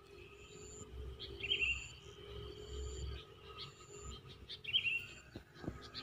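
Outdoor ambience of small creatures calling: a short high-pitched note repeats about once a second, with lower chirps every second or two over a low rumble.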